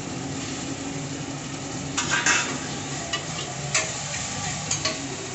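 Chopped tomatoes sizzling in hot oil with fried onion and ginger-garlic paste in a pressure cooker, stirred with a spoon that knocks and scrapes against the pot a few times, loudest about two seconds in.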